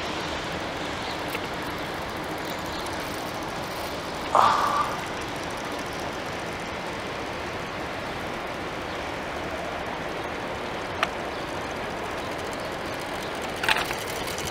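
Steady background noise of distant city traffic, with one short, louder sound about four seconds in and a sharp click near the end.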